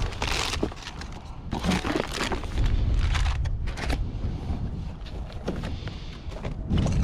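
Rummaging through a pile of household junk: irregular knocks, clatters and scrapes as items are shifted and pulled out, over a low rumble.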